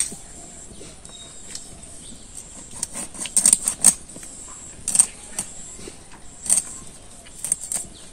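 Fish being scaled on a boti blade: short, crisp scraping strokes as the fish is drawn against the curved metal edge, a quick cluster a little over three seconds in, then single strokes about every second and a half.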